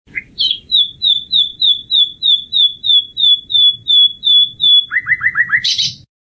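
Common nightingale singing one phrase: a long run of rapid repeated high notes, about four a second, then a quick burst of five lower notes and a harsh buzzy note, after which the song stops abruptly.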